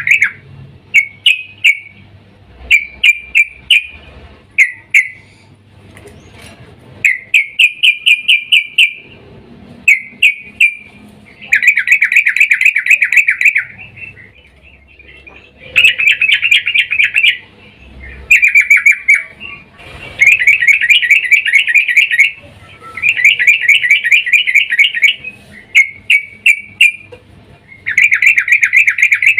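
Female yellow-vented bulbul (trucukan) calling in loud bouts of fast, chattering notes, each bout a second or two long and repeated after short pauses: a female in breeding condition calling to a male.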